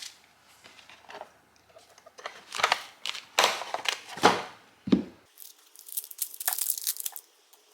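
Plastic packaging crinkling and tearing as it is handled and opened, in a run of short rustles, turning to lighter, finer crackling for the last couple of seconds.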